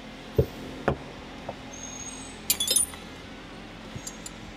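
Hand tools and carburetor parts being handled on a workbench: two light knocks in the first second, then a brief metallic clinking about two and a half seconds in, over a faint steady hum.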